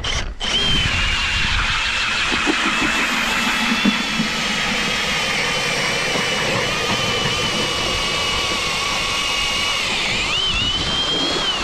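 Cordless drill driving an ice auger bit through lake ice: a steady motor whine under load with the grinding of the blades. About ten seconds in, the pitch sags and then jumps up as the load comes off, the sign of the bit breaking through the ice, before the drill stops.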